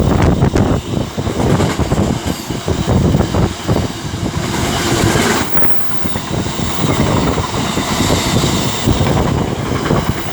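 Freight train hauled by a Class 66 diesel passing through the station, its wagons rumbling and clattering over the rails in an uneven run of knocks.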